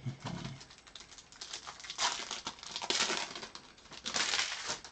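Trading cards and plastic card sleeves being handled: a run of small clicks and slides with crinkly plastic rustling, in louder bursts about two, three and four seconds in.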